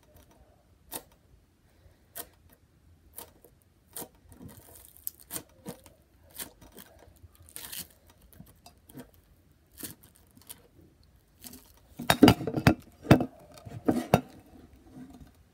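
Foam-bead slime (floam) squeezed and stretched by hand, giving sharp crackling clicks about once a second, then a dense run of louder crackles and pops near the end.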